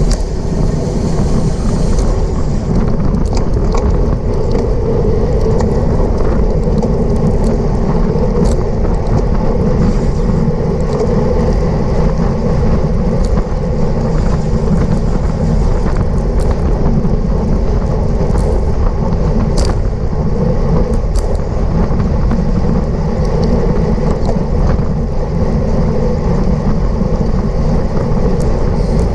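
Wind rushing over the microphone and tyre noise from a road bike ridden at race speed: a loud, steady rumble with a few faint clicks scattered through it.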